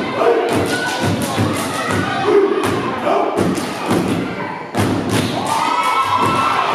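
Fraternity step team stomping and clapping in unison, sharp hits in a quick, uneven rhythm, with voices calling out over the beats and one long held shout near the end.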